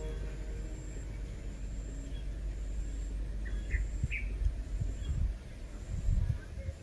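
Low, noisy background rumble with a few soft low thumps, and a couple of faint short chirps a little past the middle; the tail of background music fades out at the very start.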